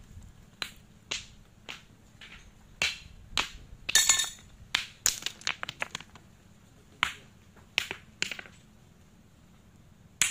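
Thrown stones clacking against beach rocks: about a dozen sharp knocks at uneven spacing, with a quick cluster of them about four seconds in.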